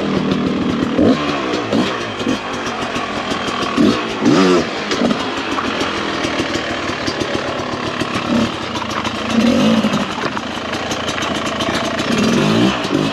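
Dirt bike engine revving in repeated short bursts as the rider works the throttle up a steep rock step, the revs rising and dropping several times. The climb falls just short of the top.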